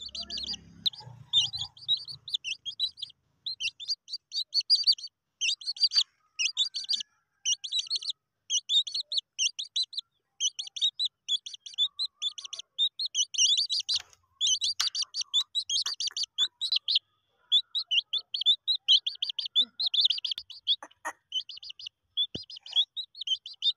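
Domestic chicks peeping without a break: rapid runs of short, high-pitched cheeps.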